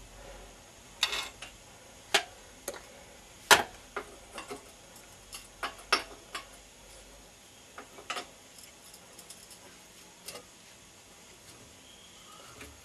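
Irregular metallic clinks and taps of hand tools and small metal parts being handled, some dozen short knocks with the loudest about three and a half seconds in.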